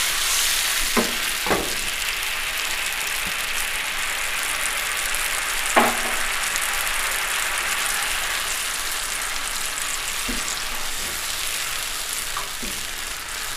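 Tamarind juice sizzling in hot oil with chopped garlic in a non-stick frying pan, a steady hiss that slowly eases. A silicone spatula stirs through it and knocks against the pan about five times, loudest about six seconds in.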